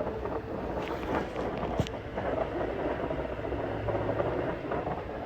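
2013 Ford Fusion Hybrid transmission making a continuous rough grinding noise, with one sharp click nearly two seconds in; the owner takes it for a failing transmission.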